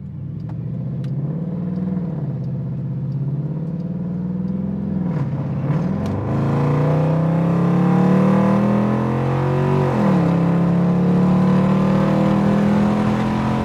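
Dodge Durango R/T's 345 Hemi (5.7-litre) V8 under acceleration, the revs climbing and dropping back at each upshift, about three times, getting louder as speed builds.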